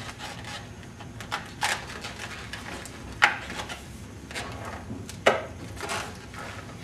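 Latex twisting balloons being handled and trimmed at the knot: rubbing of the rubber with a few sharp clicks, the loudest about three and five seconds in.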